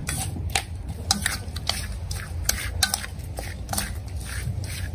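Chopsticks tossing pieces of eel in marinade in a metal pan, with quick, irregular clicks of the sticks against the pan several times a second.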